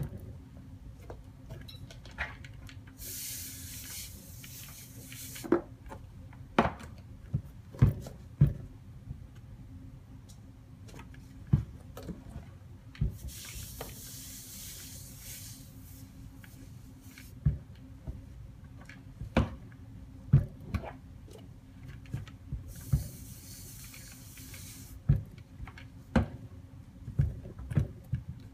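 Clothes iron pressed on a damp rag over a sneaker's creases, steam hissing in three bursts of a couple of seconds each, as creases are steamed out of the leather. Light knocks and taps come in between.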